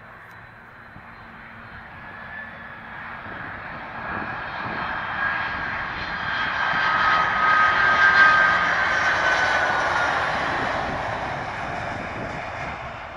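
Airbus A300-600ST Beluga's twin turbofan engines on landing approach: a jet rush with a high whine that swells as the aircraft comes past, loudest about eight seconds in, then fades as it touches down on the runway. The whine drops a little in pitch just after the loudest point.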